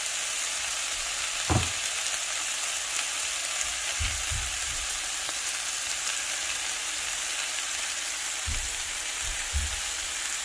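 Red onions, red pepper and raw Italian sausage frying in a skillet: a steady sizzling hiss, with a few short, low thumps along the way.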